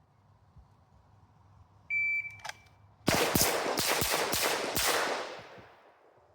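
Shot timer's start beep, about half a second long, then a rapid string of about six pistol shots over roughly two seconds that ring out and fade.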